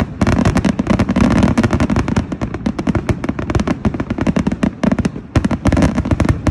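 Fireworks finale barrage: dense, rapid rounds of aerial shell bursts and crackling reports overlapping continuously, loud throughout.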